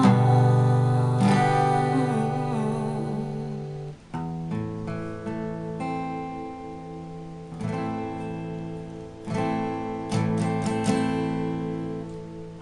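Acoustic guitar strummed in slow chords, each struck and left to ring and fade before the next.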